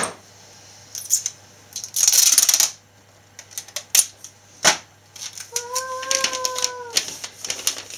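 Foil wrapping paper crinkling and rustling as it is folded over a cardboard box, with a hissing rustle of about a second and a few light clicks. Near the end a cat meows once, a steady call lasting about a second and a half.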